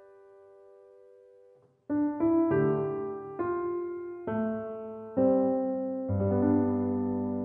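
Background piano music: a slow, gentle piece in which a chord fades out over the first two seconds, then single notes and chords are struck about once a second, each ringing and dying away.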